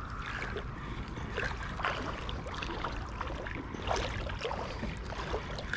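Spinning reel being worked while a hooked catfish is played, with scattered light clicks and rustles over a steady low rumble of wind on the microphone.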